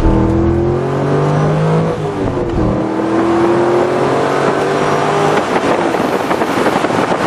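Corvette Z06's V8 engine under hard acceleration, its note climbing in pitch, dropping with an upshift about two seconds in, then climbing again through the next gear. About five seconds in, the engine note fades under rising wind and road noise.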